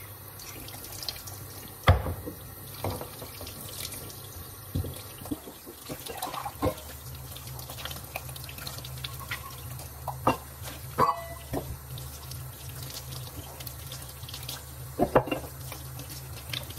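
Kitchen tap running into a sink while metal trophies are rinsed and scrubbed under the stream, with occasional sharp knocks and clinks as the metal pieces bump the sink and counter.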